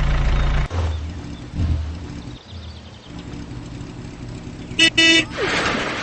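Cartoon car sound effects: a low engine rumble that drops off under a second in and settles into a quieter hum, then two short horn beeps about five seconds in, followed by a brief rush of noise.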